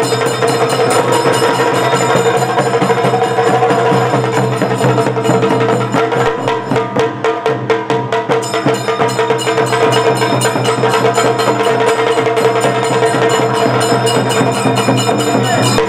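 Tamil festival drum ensemble beating a fast, dense rhythm with sticks, over a steady held tone.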